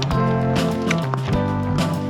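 Background music: sustained instrumental chords changing in steps, with percussion hits.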